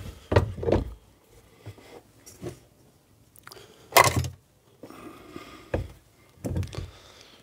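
Aluminium cam carrier casting being worked loose and lifted off a Rover 1.8 K-series cylinder head: a few scattered metal knocks and clunks, the loudest about four seconds in.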